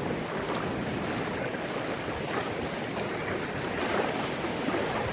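Sea surf washing on the shore, with wind blowing across the microphone, as a steady rushing noise.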